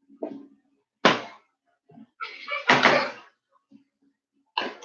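Stainless steel mixing bowls knocking together as beaten egg whites are tipped from one into the other: a sharp knock about a second in, then a longer knock and scrape near the middle.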